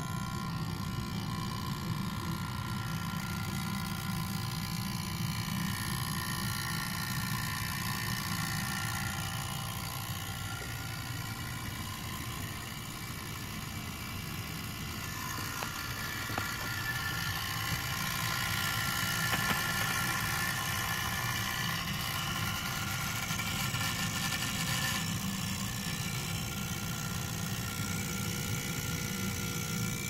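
Pinball machine humming really bad: a steady low hum and buzz with several high whining tones above it, swelling a little about two-thirds of the way through. It is the sign of the MPU board not getting a proper 5 V, which the owner traced to a fault in the power supply.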